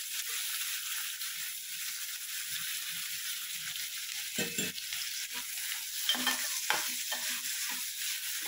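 Chopped onion sizzling steadily in hot oil and butter in a pan, with a metal spoon scraping and stirring it a few times in the second half.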